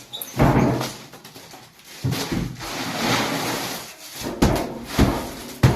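Packing work being handled: two stretches of scraping and rustling, then three sharp knocks of items being set down or bumped near the end.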